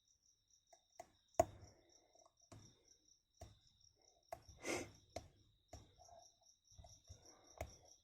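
Small sharp clicks and ticks of a lock pick and tension bar working the pins of a Best padlock, the loudest about a second and a half in, over a cricket chirping steadily in a fast, even pulse.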